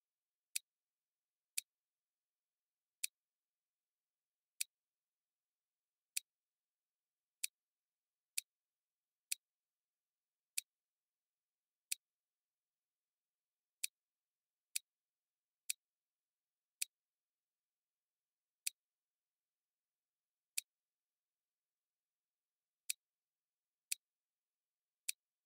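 Computer mouse button clicks, about twenty sharp single clicks at uneven intervals of one to two seconds, with near silence between them.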